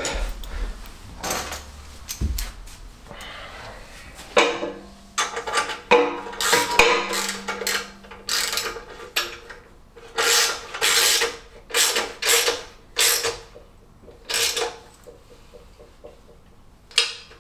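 Ratchet spanner driving a bolt home until it seats, its pawl clicking in repeated short bursts, about one a second.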